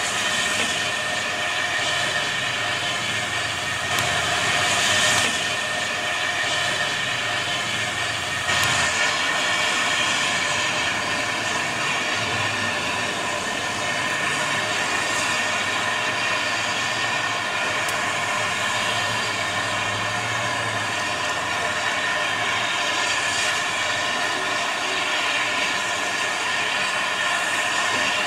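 Small steam tank locomotive standing with steam hissing steadily from it, under a low rumble that fades out about three quarters of the way through.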